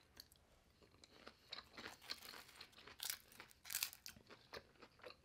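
A person chewing a mouthful of raw-vegetable poke bowl, with irregular crisp crunches, loudest about three to four seconds in.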